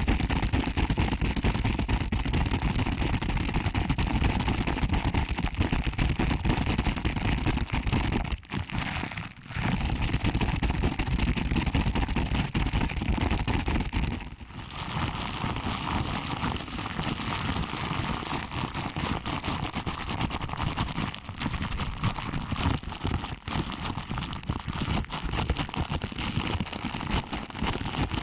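ASMR ear pinching: fingers squeezing and rubbing the ears of a binaural microphone, a dense, close crackling rustle with two short pauses, about a third of the way in and again about halfway.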